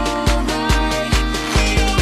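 Electronic dance music with a steady, pounding bass-drum beat and held synth tones.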